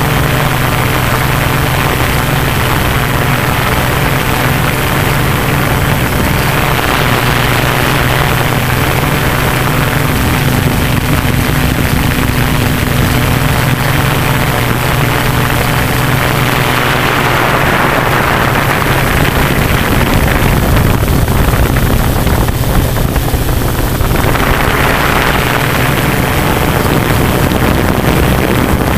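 Hexacopter's six electric motors and propellers running in flight, heard close up: a steady multi-tone hum with a rushing airflow noise that swells and eases several times.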